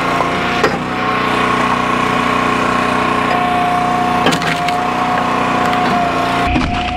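Small gas engine of a log splitter running steadily, its note shifting now and then as the splitter works, with a few sharp cracks of wood splitting.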